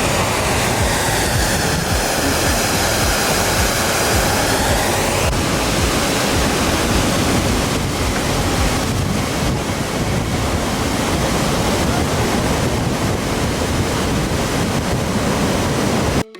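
Multnomah Falls waterfall: a loud, steady rush of falling water that cuts off suddenly at the very end.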